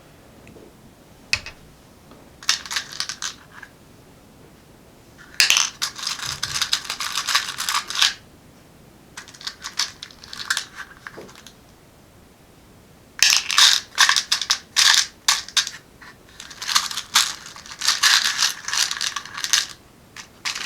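Small metal computer screws being rummaged through and sifted by hand. They clink and rattle in bursts of rapid clicks with short pauses between, and the longest bursts come in the second half.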